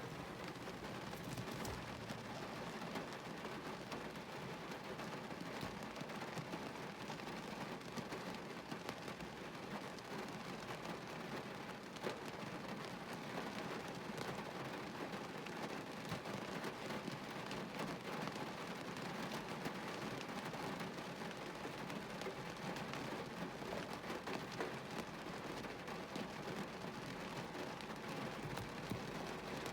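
Heavy rain falling on a car, heard from inside the car: a steady, dense patter of countless drops.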